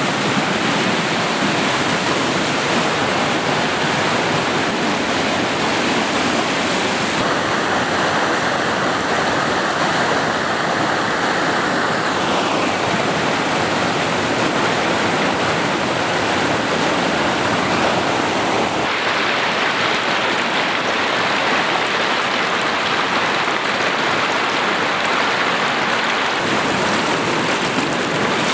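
Mountain creek rushing over rocks: whitewater making a steady, dense rush.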